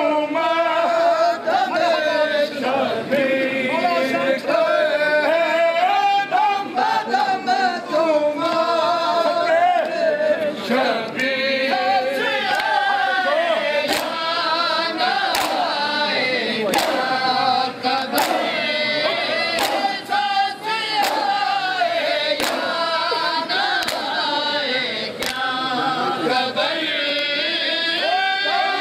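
Men chanting a noha, a Shia mourning lament, together in a choir-like chorus, with sharp slaps of matam, open-hand chest-beating, keeping time about every second and a half. The slaps are clearest in the second half.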